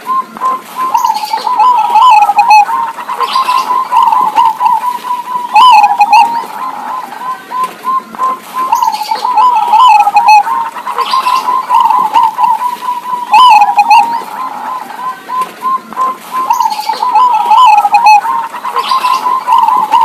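Zebra doves (perkutut) cooing and answering each other. A phrase of quick staccato coos comes back about every four seconds, with fainter higher chirps between the phrases.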